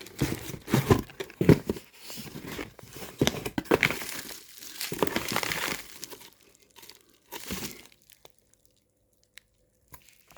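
Packaging being opened by hand: crinkling and tearing for about six seconds, with one more short rustle a little later.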